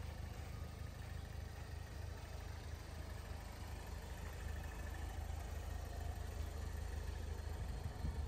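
2008 Pontiac Solstice GXP's turbocharged 2.0-litre four-cylinder engine idling steadily, a low even rumble.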